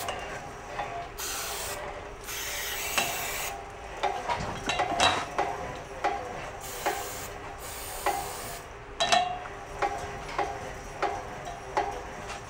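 Aerosol can of Fluid Film lubricant sprayed in several short hissing bursts onto a hose reel's crank hub. Between and after the bursts the reel's freshly lubed hand crank is spun, giving a regular click about every 0.6 seconds.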